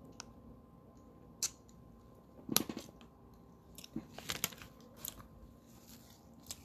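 Faint, scattered clicks and small handling noises over a quiet room, the sharpest about two and a half seconds in and a few more close together around four seconds in.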